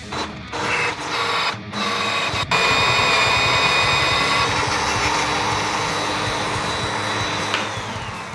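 Milwaukee M18 FUEL cordless magnetic drill running with an annular cutter, giving a steady motor whine. The sound is choppy with short gaps for the first couple of seconds. Near the end the whine falls in pitch as the motor winds down.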